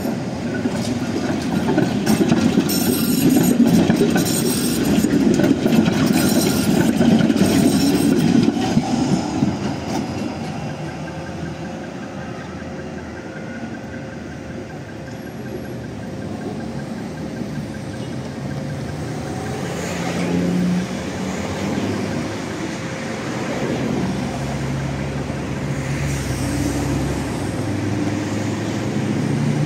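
Electric city trams rolling over street tracks and a junction, with a loud rumble and a rapid clatter of wheels over rail joints and crossings in the first several seconds. Later it settles into quieter street traffic with a low engine hum building near the end.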